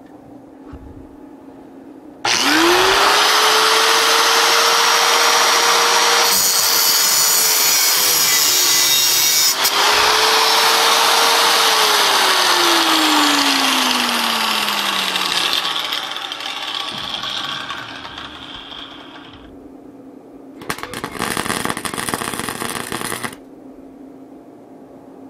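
Angle grinder with a cutoff wheel spinning up about two seconds in and cutting through stainless steel rod, a loud steady grinding noise over its whine; it is then switched off and its whine falls away as the wheel winds down. Near the end, a MIG welding arc crackles for about three seconds.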